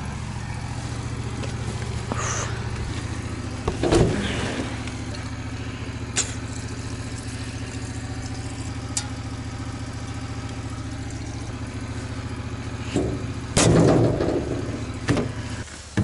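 An engine running at a steady idle, with a few clunks of handling about four seconds in and again near the end; the engine hum drops away just before the end.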